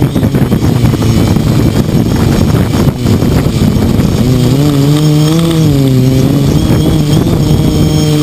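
Quadcopter motors and propellers buzzing, heard from the camera on the craft, with wind rushing over the microphone. About four seconds in the rushing eases and a strong pitched drone takes over, its pitch wavering up and down.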